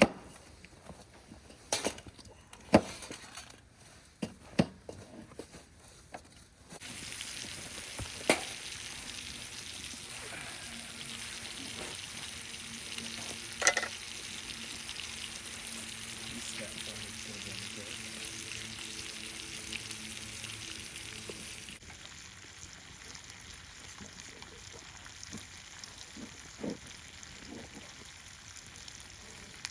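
A few sharp knocks and clatters of cookware, then from about seven seconds in the steady sizzle of bacon frying in a hot pan, going on somewhat quieter after about twenty seconds.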